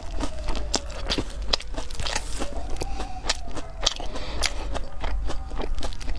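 Close-miked chewing of crunchy fried food, a quick run of sharp crunches and wet mouth clicks, several a second.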